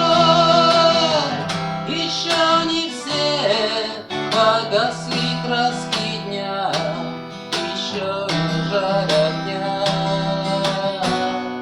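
Acoustic guitar strumming chords in a steady rhythm, accompanying a man's singing; his voice holds a long wavering note at the start.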